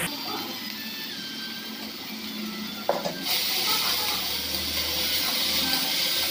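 Onion-tomato masala with freshly added ginger-garlic paste sizzling in hot oil in a kadai as it is stirred with a spatula. There is a knock about three seconds in, after which the sizzle turns to a loud, steady hiss.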